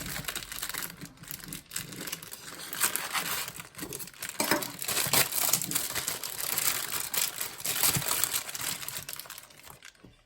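Plastic wrapper of a packet of Maggi instant noodles crinkling as it is handled and opened. The crackle is irregular and dies away near the end.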